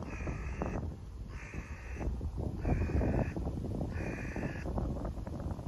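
A crow cawing four times, evenly spaced about a second and a third apart, each caw short and level in pitch.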